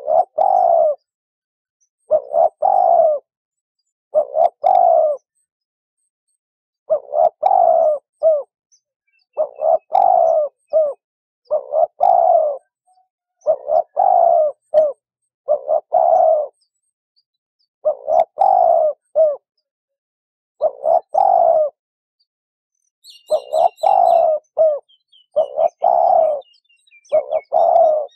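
A dove cooing over and over, in phrases of two or three coos about every two seconds, with a few longer pauses. In the last few seconds a smaller bird chirps quickly and faintly behind it.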